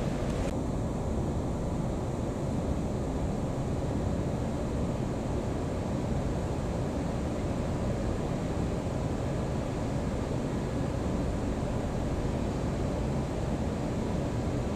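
Steady low-pitched background noise with no distinct events.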